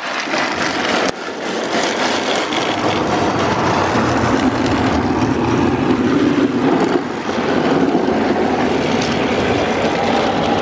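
Automatic car wash spraying water and soap over the car's windows and body, a steady dense rush heard from inside the cabin.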